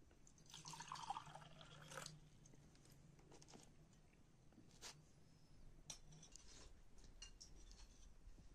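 A drink poured from a glazed ceramic jug into a ceramic cup for about a second and a half, ending on a sharp clink. After it come a few light clicks of spoons and crockery.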